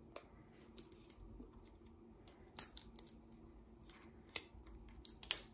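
Sharp little clicks and taps of fingers handling an Apple TV 4K's hard plastic casing and its cardboard box tray as the unit is lifted out. The loudest clicks come about two and a half seconds in and in a quick cluster near the end, over a faint steady hum.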